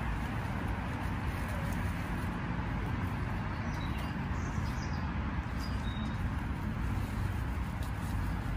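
Steady outdoor background rumble and hiss, with a few faint, short, high bird chirps in the middle.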